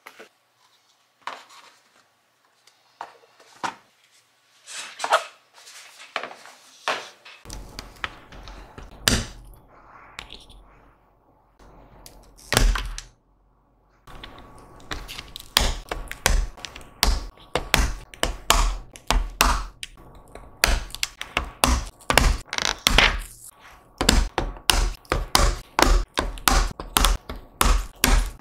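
Mechanical keyboard parts clacking and tapping: scattered single taps and knocks at first, then from about halfway a fast, uneven run of sharp clacks, several a second.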